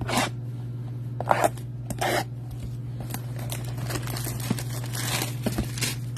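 Plastic shrink-wrap being torn and crinkled off a cardboard trading-card box: several short rips, then a longer stretch of crinkling about four to five seconds in.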